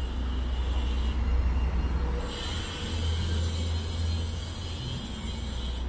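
Traffic on a wet city street: a steady low rumble of passing vehicles with a high hiss over it that cuts out for about a second early on.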